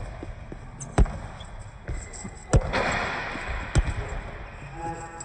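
Basketball being dribbled on a gym floor during one-on-one play: a few hard bounces at uneven intervals, about one, two and a half and nearly four seconds in, with a lighter one in between.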